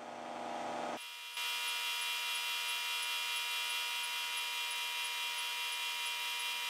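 LH-15A induction heater running under power while a steel bar heats to glowing in its work coil: a steady electrical hum and whine made of several constant tones. The sound steps up to its steady level about a second in.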